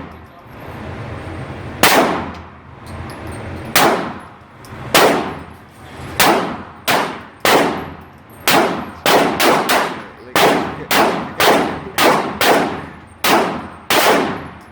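9mm pistol shots: a string of about eighteen, a second or two apart at first and then coming in quicker bursts, each with a short ringing tail.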